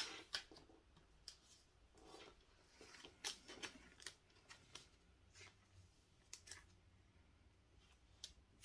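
Faint clicks and light rustles of Pokémon trading cards being handled and stacked by hand, with a sharp tap at the very start.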